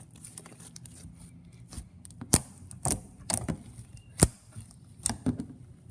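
Cloud cream slime being worked in the hands: soft handling at first, then about six sharp clicks and pops at uneven intervals from about two seconds in. It is the clicky sound this slime is known for.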